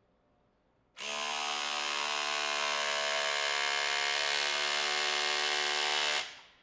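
Ryobi P222 brushed cordless SDS rotary hammer in hammer-only mode, run at full power, its domed bit hammering against a steel test fixture in a rapid, steady buzz. It starts about a second in and stops just before the end.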